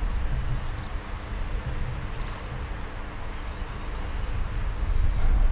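Outdoor ambience on an open training ground: a steady low rumble with faint, scattered bird chirps.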